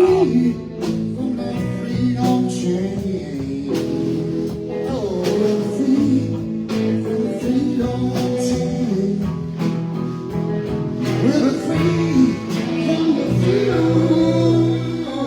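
Live blues band playing a passage without words: a steady beat under a guitar playing bent, sliding notes.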